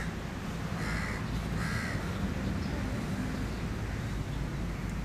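A crow cawing twice, about a second in and again just after, over steady low background noise.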